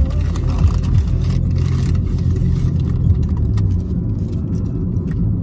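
Car engine and road noise heard inside the cabin while driving: a steady low rumble.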